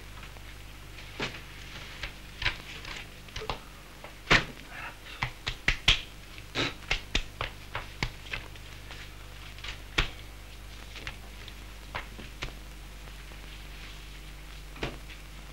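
Pages of a large ledger and loose papers being flipped and leafed through on a wooden desk: a string of sharp paper slaps and rustles, busiest in the middle, over a steady low hum.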